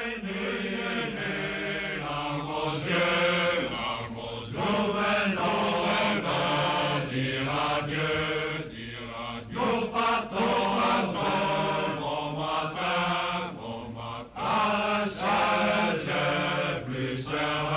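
A men's chorus singing a slow song in long held notes, the voices fading away at the end.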